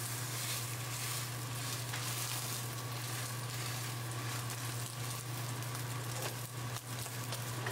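Steak searing in a smoking-hot cast iron skillet: a steady sizzle as the meat's surface browns into a crust. A steady low hum runs underneath.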